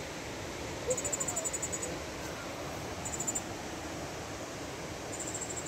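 An insect chirping in rapid, high-pitched pulsed trills, in three bursts of a second or less, over a steady background hiss.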